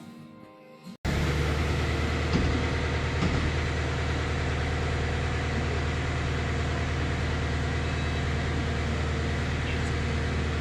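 Faint background music for about a second, then, after an abrupt cut, the diesel engine of a Kubota SVL90 compact track loader running steadily at idle.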